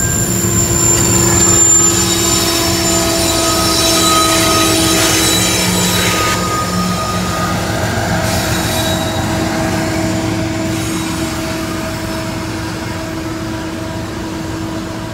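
A CSX freight train's cars rolling past close by: a low rumble of wheels on rail with several steady high squeals from the wheels. It gradually grows quieter toward the end as the train moves away.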